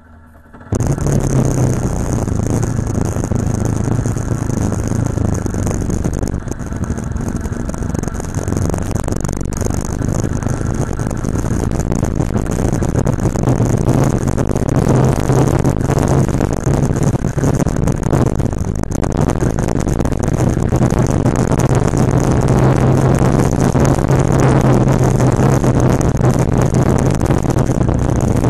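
Motorcycle engine running at a steady cruise under heavy wind and road noise, heard from a camera mounted on the moving bike. The sound cuts in abruptly about a second in.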